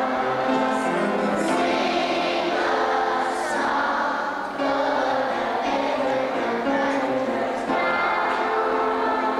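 A choir singing with music, many voices holding long sustained notes that shift every second or so.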